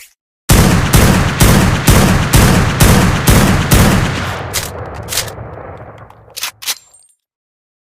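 Homemade sniper-rifle gunshot sound effect fired in quick succession, about eleven shots at roughly two a second, with the echo trailing off after the last one. Two short clicks follow.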